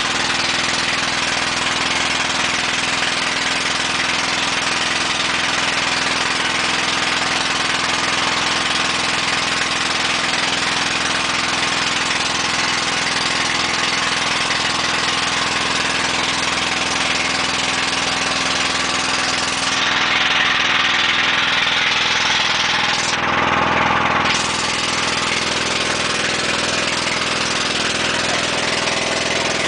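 Small boat's engine running steadily under way, with a constant rush of wind and water. About twenty seconds in, a louder rush of noise swells for roughly four seconds, then settles back.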